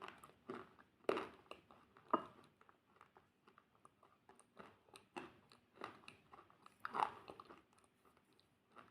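Crunchy food being bitten and chewed close to the microphone: a string of sharp crunches, the loudest about a second in, about two seconds in and about seven seconds in, with softer chewing crackles between.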